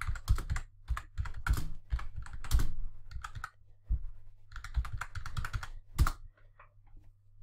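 Typing on a computer keyboard: two runs of rapid keystrokes with a short pause between, one harder key strike about six seconds in, then a few faint clicks.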